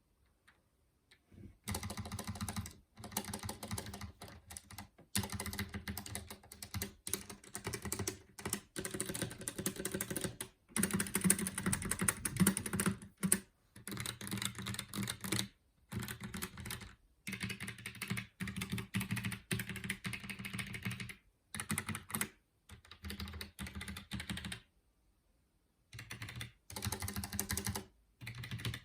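Typing on a ROCCAT Vulcan 120 AIMO mechanical gaming keyboard: fast runs of key clicks and clacks in bursts of a few seconds, with brief pauses, the loudest stretch coming about a third of the way in and a longer pause near the end.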